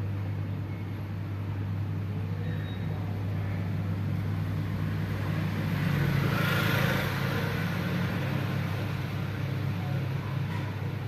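Road traffic: a steady low hum, with a vehicle passing by that swells loudest about six to seven seconds in and then fades.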